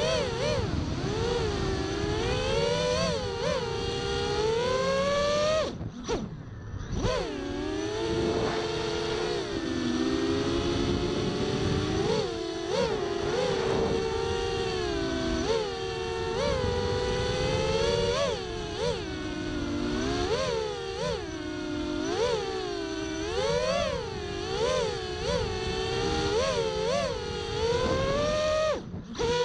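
FPV quadcopter's four T-Motor F80 1900kv brushless motors spinning DAL Cyclone 7056 tri-blade props: a whine of several close pitches that rises and falls constantly with the throttle, dropping out for about a second around six seconds in. Wind noise runs underneath.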